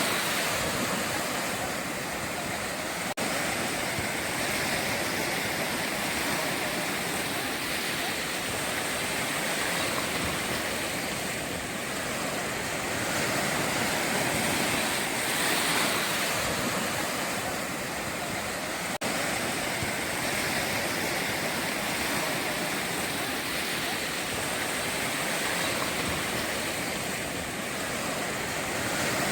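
Ocean surf breaking and washing ashore: a steady rushing that swells and eases every few seconds, cutting out for an instant twice.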